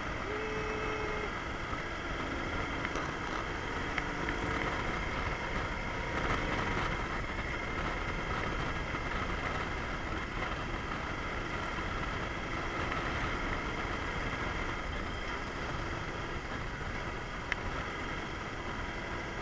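Yamaha DragStar Classic's V-twin engine running steadily while the motorcycle cruises along a road, mixed with a constant rush of wind and road noise. One short click near the end.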